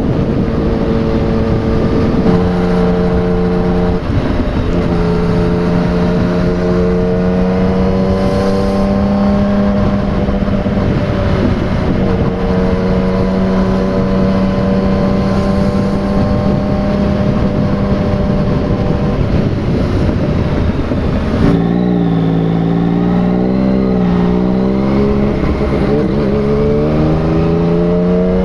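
Yamaha MT-09's inline three-cylinder engine running through a replica Akrapovic aftermarket exhaust while the bike is ridden at a steady cruise. The exhaust note drops slightly about two seconds in. About three-quarters of the way through it dips and wavers, then climbs again near the end.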